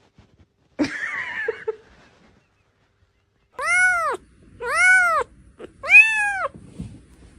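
Domestic cat meowing three times, about a second apart, each call rising and then falling in pitch, the last the loudest. A short, scratchy sound comes about a second in, before the meows.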